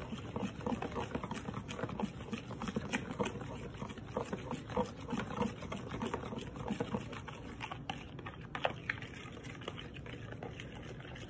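A metal utensil stirring a thick homemade barbecue sauce of ketchup, hot sauce and bottled barbecue sauce in a bowl, clicking and scraping against the bowl in quick, irregular taps.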